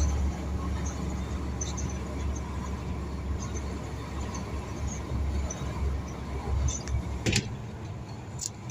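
Steady low drone of a Mercedes-Benz concrete truck's engine and road noise while driving, heard from inside the cab, with two short clicks near the end.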